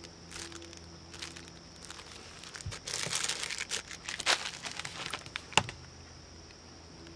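Twinkie's clear plastic wrapper crinkling and crackling as it is handled, a run of crackling from about three to five and a half seconds in with a few sharp crackles.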